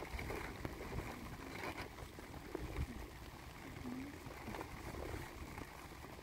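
Wind buffeting the microphone on open ground, a steady low rumble, with faint scattered rustles and light knocks.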